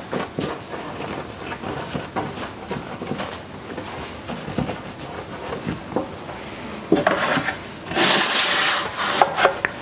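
Hands shaping bread dough into loaves and setting them into greased bread pans on a wooden counter: soft rubbing with light knocks, and a louder stretch of rubbing about eight seconds in.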